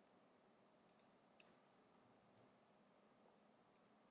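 Faint, scattered clicks of a computer mouse and keyboard, about half a dozen, with a close pair about a second in, against near silence.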